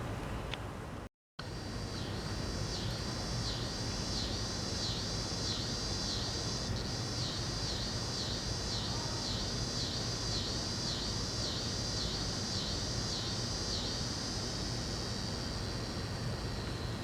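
Scissor grinder cicada singing: a high, rhythmic buzzing song pulsing about twice a second, which smooths into a steadier buzz and fades near the end. Under it runs a steady low rumble, and the sound cuts out completely for a moment about a second in.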